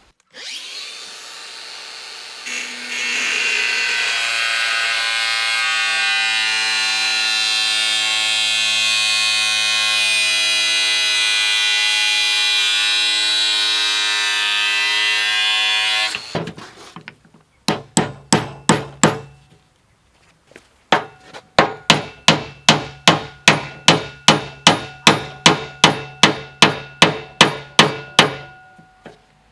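A power tool runs steadily for about sixteen seconds, high and hissy, and then stops suddenly. After a short pause come hammer blows on metal, about two a second, each one ringing, as a steel tube is driven into the anchor roller fitting.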